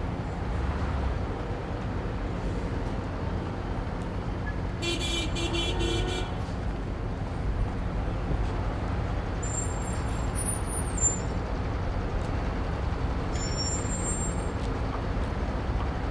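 Steady rumble of city street traffic, with cars and buses passing. About five seconds in there is a brief high hiss with a squeal in it, and short high-pitched squeals follow near the middle and again later.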